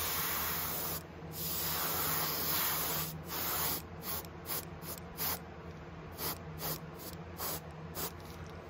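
Gravity-feed airbrush spraying: two longer hisses of about one and two seconds, then a run of short puffs, roughly two a second, as the trigger is flicked on and off.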